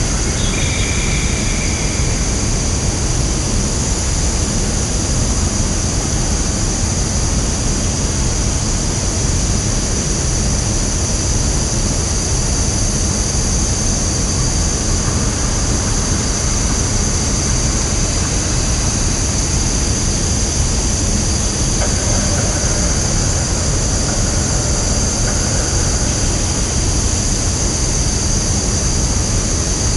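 Woodland ambience: a steady rushing noise with a continuous high-pitched drone over it, and a few faint short calls near the start and again about two-thirds of the way through.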